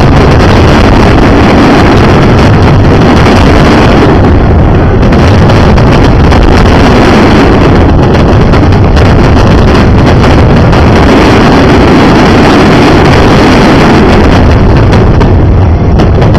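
A fireworks finale barrage: many shells bursting so close together that the bangs merge into one loud, continuous rumbling crackle with no gaps.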